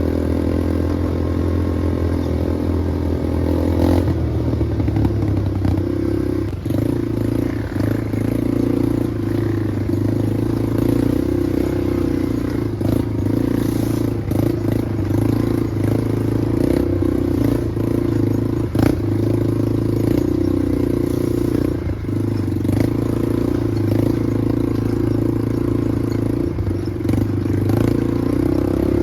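Small off-road vehicle engine running steadily, its pitch shifting about four seconds in, with rattling clatter and a few knocks over it.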